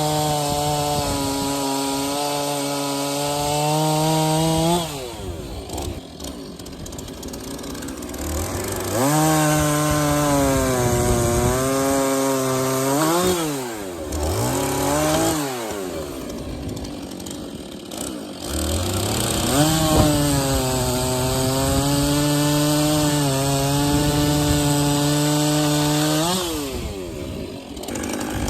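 Two-stroke chainsaw bucking firewood logs. Three times it revs up and runs at full throttle for several seconds, dropping back between cuts, with a couple of short throttle blips midway.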